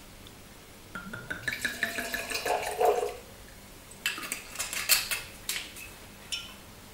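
White wine poured from a glass bottle into a stemmed wine glass, the pour's pitch rising as the glass fills. A few light clinks and drips follow as the bottle is tipped back.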